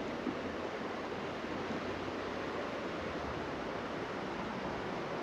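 Steady rush of flowing river water where a muddy river and a tributary meet.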